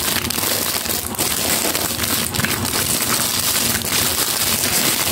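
Thin clear plastic packaging crinkling and crackling as hands handle and unwrap a plastic soap holder, a continuous run of irregular sharp crackles.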